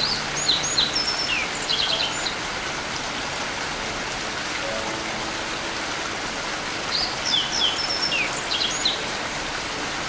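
Steady rain falling on a forest, with a songbird singing a short phrase of high chirps and trills at the start and again about seven seconds in.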